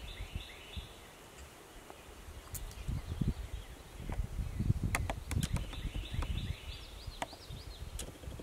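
Low rustling and thumps close to the microphone, loudest about halfway through, with several sharp clicks. A small songbird calls in quick runs of short high notes near the start and again in the second half.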